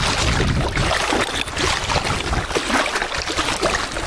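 Small waves lapping and trickling on choppy open water, with wind rumbling on the microphone.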